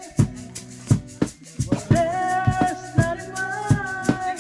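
Background music: a song with a steady drum beat and held melody notes.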